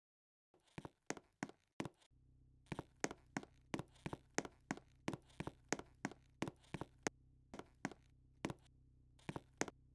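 A run of sharp taps or knocks, about three a second, with a short pause about two seconds in and the taps thinning out near the end, over a faint low steady hum.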